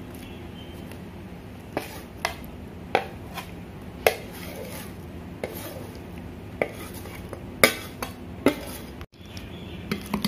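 A metal spoon scraping pieces of mango pickle off a ceramic plate into a glass bowl and stirring them into thick masala, with sharp clinks of the spoon against the plate and bowl every second or so.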